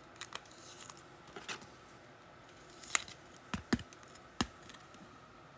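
Trading cards being handled and flicked through by hand: about half a dozen light clicks and snaps at uneven intervals.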